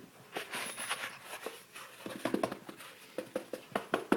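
Paper towel roll patting a cat: soft, irregular taps, coming quicker in the second half.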